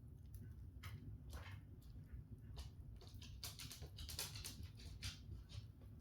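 Open log fire crackling faintly, with scattered sharp pops and a denser run of crackles a little past halfway, over a steady low rumble.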